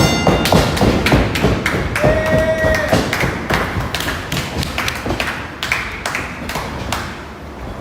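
A fast, irregular run of thumps and taps from blows being traded in a sparring bout. About two seconds in there is a brief held tone lasting under a second.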